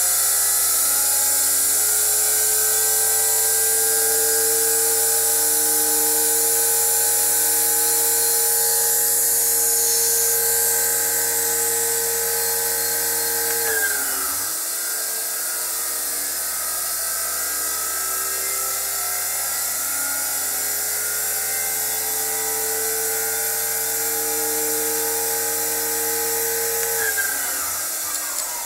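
AC electric motor running on a variable-frequency drive (inverter), giving a steady high-pitched electric whine and hum over a hiss. Its pitch drops sharply about halfway through, climbs slowly back up, then drops sharply again near the end.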